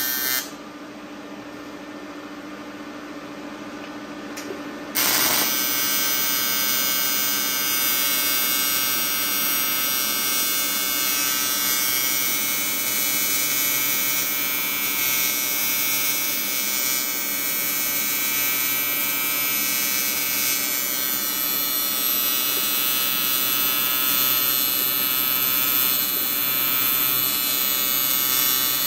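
AC TIG welding arc buzzing steadily as a bead is laid on cast aluminium. The arc breaks off about half a second in and strikes again about five seconds in, then runs on unbroken.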